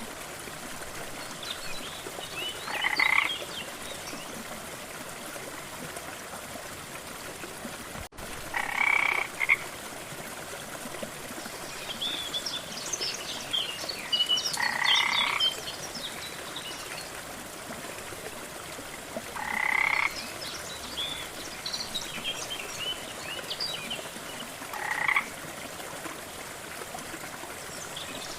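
Frogs croaking over the steady rush of a waterfall, five loud croaks spaced about five to six seconds apart, with fainter high chirps in between. The sound drops out for a split second about eight seconds in.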